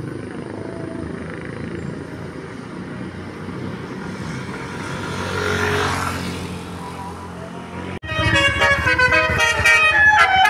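A bus engine running, growing louder about five to six seconds in. After an abrupt break near the end, a bus telolet horn plays a rapid multi-note tune.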